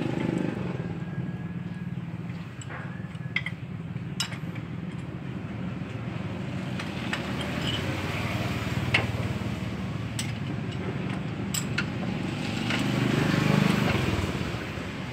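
A steady low mechanical hum, with a few sharp metallic clicks as a wrench works the bolts of a gearbox and axle housing.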